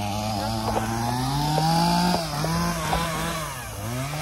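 Chainsaw engine running at high speed while cutting a tree. Its pitch climbs over the first two seconds, sags, and dips again near the end as the load on the saw changes.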